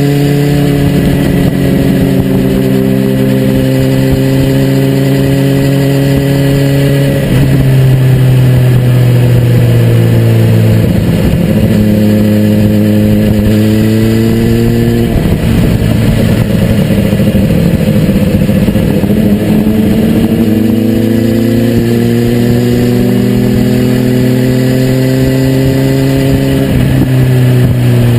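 BMW S1000RR inline-four sport-bike engine at speed on track, its pitch climbing through the revs and dropping back at gear changes several times, over steady wind rush.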